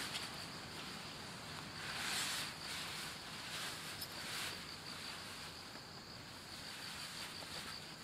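Insects chirping steadily in a fast, even pulse at a high pitch, with soft rustling of a mesh mosquito net and tarp fabric being handled, swelling twice, about two and four seconds in.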